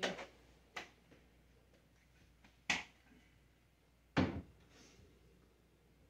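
Four short knocks and clatters of things being handled inside an emptied refrigerator, as its shelves and bins are cleaned; the last, about four seconds in, is the heaviest thud.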